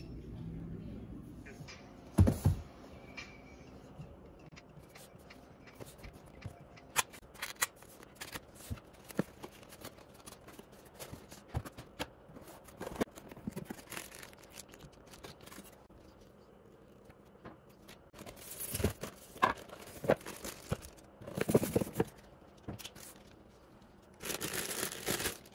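Cardboard box and plastic bag packaging being handled and opened: a thump about two seconds in, scattered taps and scrapes, then several longer bursts of rustling and tearing in the second half.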